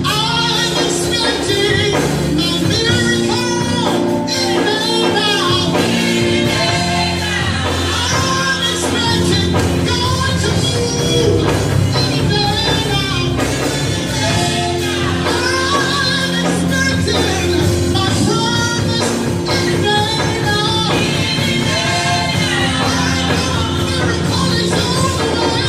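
Gospel choir singing with a live band, steady bass and chords under the voices: a praise song in a church service.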